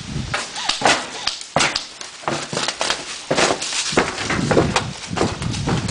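A run of irregular, sharp knocks and scrapes, several a second and unevenly spaced.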